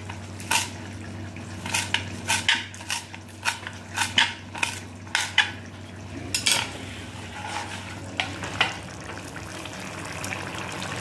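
Knife chopping fresh coriander leaves on a wooden cutting board: irregular knocks of the blade on the board, most of them in the first six or seven seconds and a few more after. A steady low hum runs underneath.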